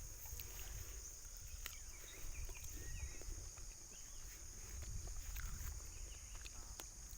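Outdoor farm ambience: a steady high buzz with a low rumble underneath, scattered faint chirps from animals, and a few small clicks.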